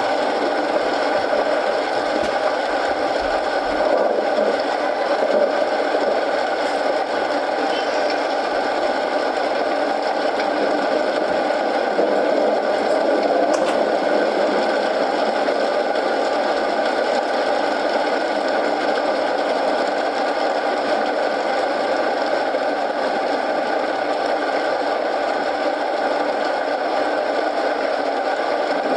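Steady rain falling, with a wood fire in a fireplace giving off a few faint crackles.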